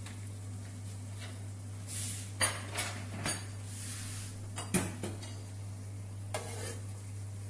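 Metal utensil clinking and scraping against a pan as gnocchi are stirred through meat sauce: a handful of separate clinks, over a steady low hum.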